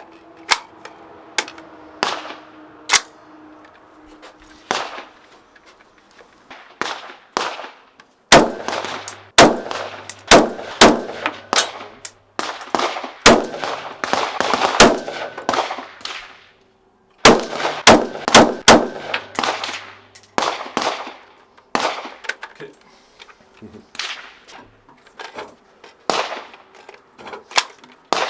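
Steyr AUG (StG 77) bullpup rifle firing 5.56 mm rounds as single shots at irregular intervals, each crack followed by a short ringing echo; the shots come thickest through the middle, up to a few a second.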